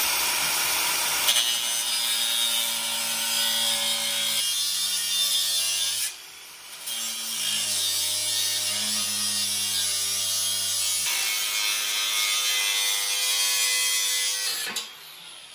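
Makita angle grinder cutting through a steel exhaust pipe just behind its bolt flange, a loud steady whine with a rasping edge that shifts in pitch as the disc bites. It stops briefly about six seconds in, starts again, and cuts off near the end.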